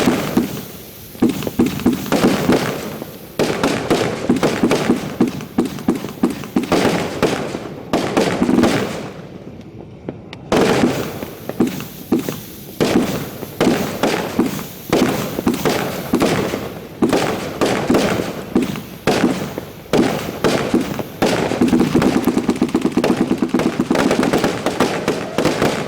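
Consumer fireworks going off at close range in a rapid, uneven barrage of sharp bangs and crackles, with a brief lull about nine seconds in and an almost unbroken volley near the end.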